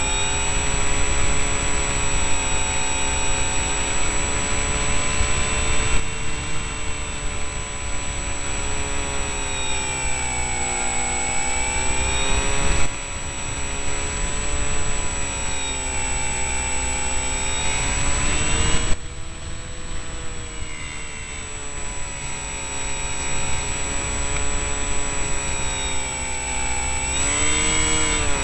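Electric motor and propeller of an RC delta-wing model, recorded on board: a whine whose pitch rises and falls as the throttle changes, over the rumble of wind on the airframe. A steady high-pitched tone runs underneath, and the sound changes abruptly twice.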